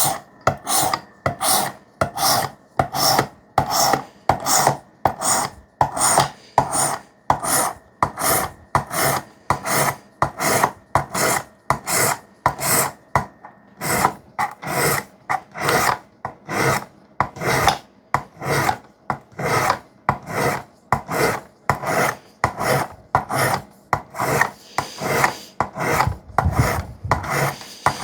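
Wet sharpening stone of a Work Sharp guided sharpening system swiped back and forth along a 3V steel knife edge, a rasping stroke about twice a second.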